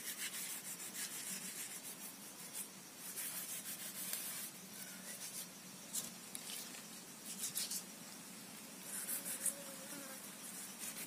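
Hands rubbing and sliding small raw fish over a rough stone slab: irregular bursts of wet, scratchy scraping, several in a row, then pauses.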